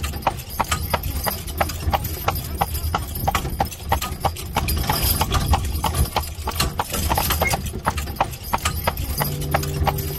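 Horse's hooves clip-clopping on the road at about three or four strikes a second as a horse-drawn carriage rolls along, over a low rumble of the carriage moving. Near the end a few steady musical notes come in.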